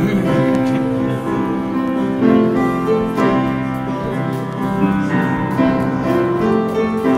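Keyboard music with a piano sound: a slow melody over held chords.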